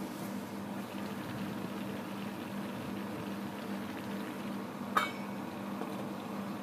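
Chicken stock and paella rice boiling in a covered pan, a steady bubbling with a low hum beneath it. About five seconds in, the stainless steel lid clinks once as it is set back on the pan.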